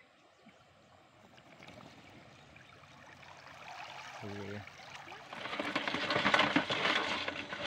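Water splashing and pouring out of the drain holes of a perforated plastic oil-can crab trap as it is lifted out of a river, starting faint and getting loud about two-thirds of the way in.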